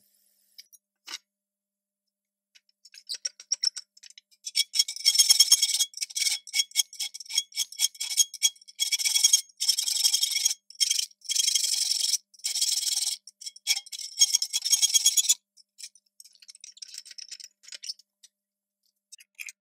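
A hand tool rasping on a flat steel bar clamped in a bench vise, the bar ringing with each run of strokes. The strokes come in runs of about a second, starting about four seconds in and stopping around fifteen seconds, with fainter strokes after.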